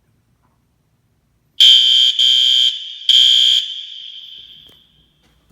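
Fire alarm horn, a wall-mounted System Sensor SpectrAlert Advance horn-strobe, sounding three short, loud, high blasts in the code-3 pattern during a walk test. The sound hangs on and fades over a second or so after the last blast.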